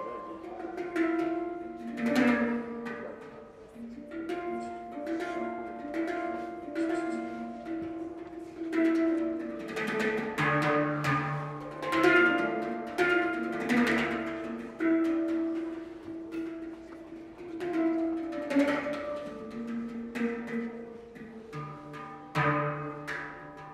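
Handpan played solo by hand: struck steel notes ring on and overlap in a slow, unaccompanied melody, with deeper bass notes sounding twice, in the middle and near the end.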